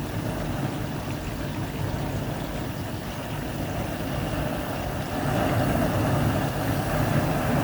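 Propane turkey-fryer burner running steadily under a pot of frying oil, a low rumbling roar that grows a little louder a bit past halfway.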